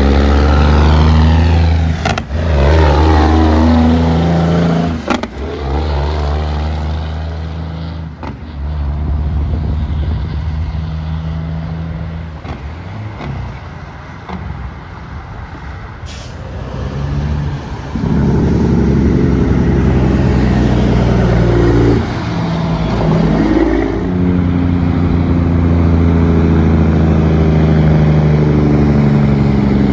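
Heavy semi-truck diesel engines, loud and deep, as big rigs pass one after another: a loud truck for the first five seconds, broken off abruptly twice, quieter traffic in the middle, and another loud truck from about eighteen seconds on.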